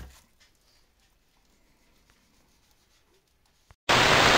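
A brief knock, then near-quiet room tone. Nearly four seconds in, a loud, even, static-like hiss starts suddenly.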